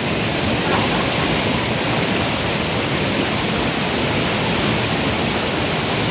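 Steady rush of whitewater from a small waterfall pouring over boulders into a river pool, loud and unbroken.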